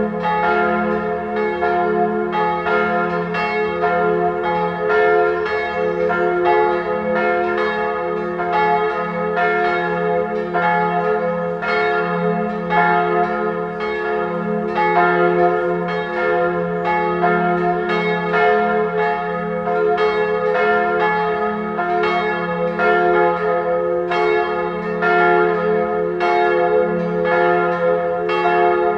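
Full peal of three church bells ringing together: two 1979 Perner bronze bells tuned f¹ and a♭¹, a minor third, topped by a small b² cymbal bell. Their strikes overlap in a steady stream, each tone ringing on under the next.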